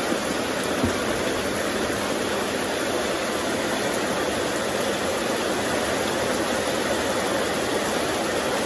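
Steady rushing background noise with no distinct events; it does not change when the liquid starts to pour.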